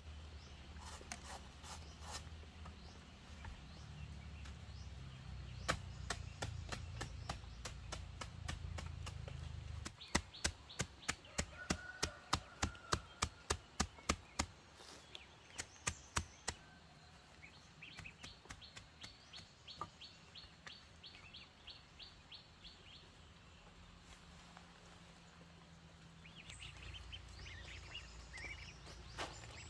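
A quick run of about fourteen sharp chopping strikes, roughly three a second, then three more, with birds chirping afterwards. A low rumble fills the first part.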